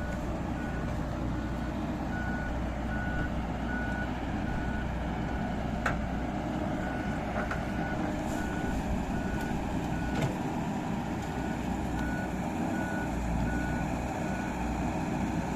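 A heavy machine's reversing alarm beeping steadily, about one and a half beeps a second, over its engine running at a steady rumble. There is a sharp knock about six seconds in and another about ten seconds in.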